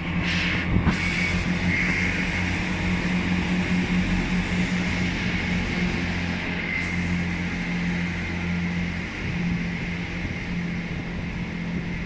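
Northern diesel multiple unit pulling out of the platform: a steady engine drone with a high whine over it, and a few sharp knocks in the first second.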